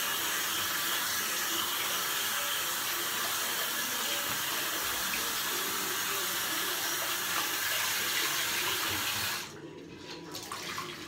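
Bathroom sink tap running steadily while a soapy washcloth is rinsed under it; the water is shut off suddenly about nine and a half seconds in, leaving a few faint clicks.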